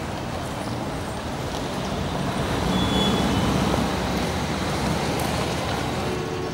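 City street traffic noise: a steady wash of road rumble that swells louder in the middle.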